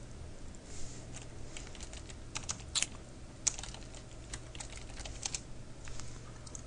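Scattered, irregular clicks of a computer keyboard and mouse being worked, over a faint steady low hum.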